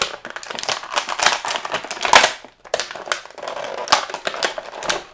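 Stiff plastic packaging crackling and clicking in a fast, uneven run as an action figure is worked free of its plastic tray by hand.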